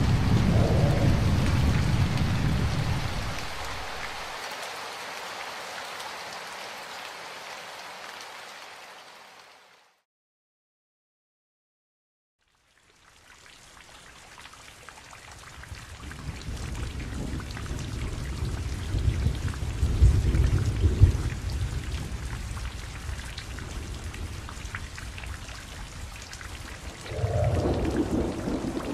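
Rain falling with thunder rumbling. The sound fades out to complete silence for about three seconds a third of the way in, then fades back in, with the thunder loudest a little past the middle and rising again near the end.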